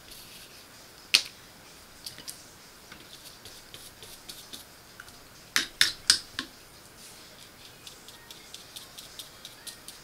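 Sharp clicks and taps from handling a contact-cement can and brush while gluing a zipper: one loud click about a second in, a quick run of three or four around six seconds, and faint small ticks between.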